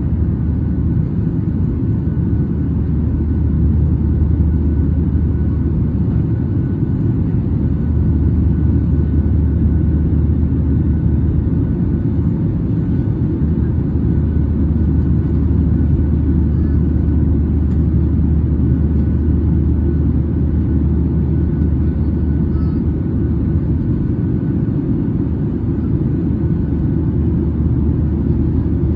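Passenger plane's engines droning steadily as heard in the cabin during the climb after takeoff: a loud low hum with a deep steady tone under it.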